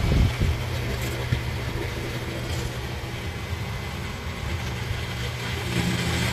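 A person snoring in their sleep: a low, rough drone, loudest right at the start, with another snore building near the end.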